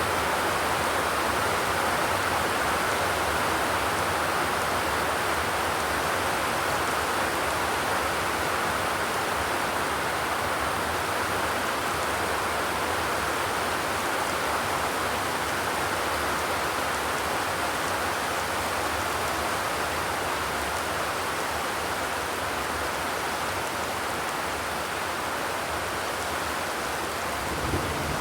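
Steady rain falling, an even hiss, with a brief low thud near the end.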